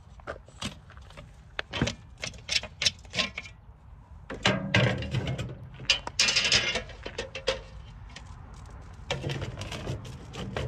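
Metal parts of cast light fixtures being handled: an irregular run of sharp clicks and knocks, with a longer rattling, scraping stretch around the middle.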